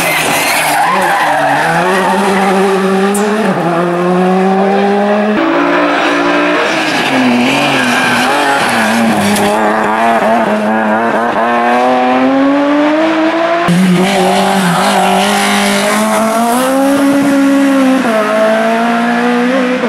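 Rally cars at full throttle one after another on a tarmac stage: first a Škoda Fabia rally car, then a BMW E30, then a Lada. Each engine revs up and drops back through repeated gear changes, with tyres squealing through the turns.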